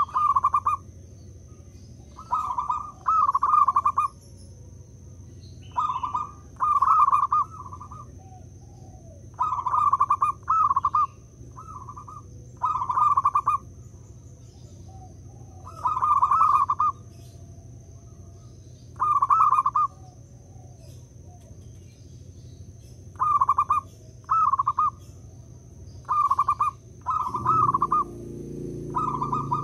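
Zebra dove (perkutut) cooing its rhythmic song: phrases of two to four quick, purring coo notes, repeated every few seconds.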